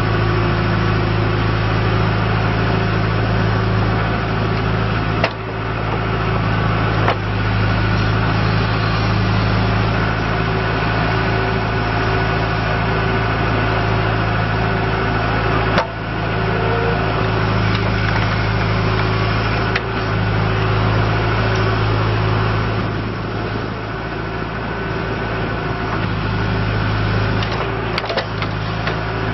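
The diesel engine of a 2007 John Deere 310G backhoe loader runs at a steady speed, with a few brief sharp clicks along the way.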